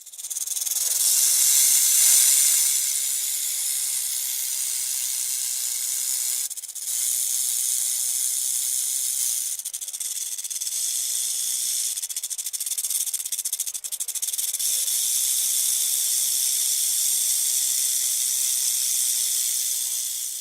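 A long, steady high hissing noise used as a monster sound effect, briefly dipping twice and fading out at the end.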